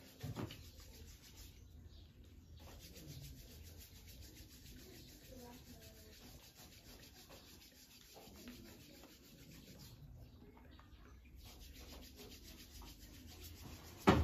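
Faint, steady rubbing of palms rolling and stretching soft dough into long strands for handmade putang noodles. A brief sharp knock near the end.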